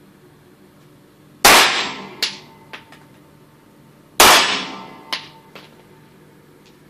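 Two shots from a Beretta semi-automatic pistol, about two and a half seconds apart, each echoing off the indoor range walls and followed by a couple of fainter sharp ticks.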